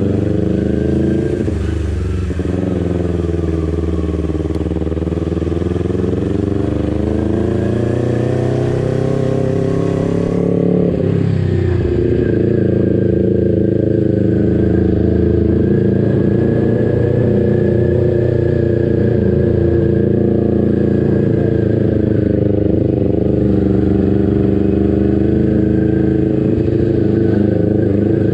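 Kawasaki Ninja 250 FI parallel-twin engine and exhaust riding at low speed, the engine pitch rising and falling with the throttle. About eleven seconds in the revs drop sharply, then the engine runs on fairly steadily.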